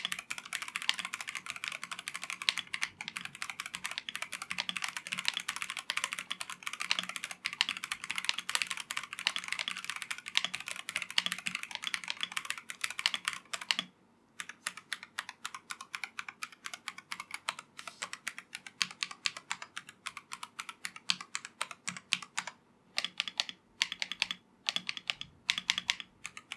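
Typing on a Royal Kludge RK H81 mechanical keyboard with Sky Cyan switches and double-shot PBT keycaps: fast, dense clacking keystrokes for the first half, a brief pause about halfway through, then slower, more spaced-out keystrokes with a few short gaps.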